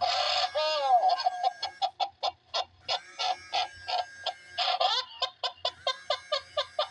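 Gemmy giggling Kris Kringle animated plush playing its recorded giggle through its small built-in speaker: a rapid string of short laughing pulses, about five a second, with a sliding squeal of laughter near the start.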